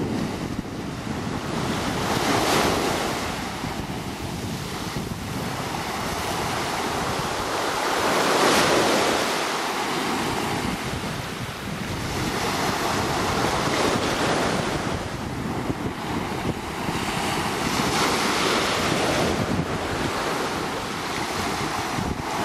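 Small waves breaking and washing up a pebble beach, surging louder about every five or six seconds, with wind buffeting the microphone.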